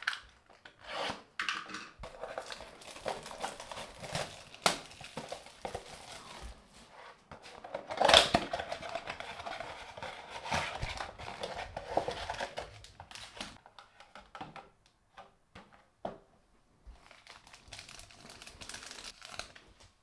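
Plastic shrink-wrap crinkling and tearing as it is cut and stripped from a cardboard trading-card blaster box, loudest about eight seconds in. Then the box flap is opened and the cards are handled with sparse clicks and soft rustling.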